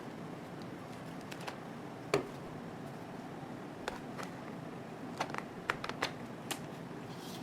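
Irregular small clicks and taps from a mirrorless camera and lens being handled over a steady faint hiss. The loudest click comes about two seconds in, and a quick run of clicks follows between about five and six and a half seconds.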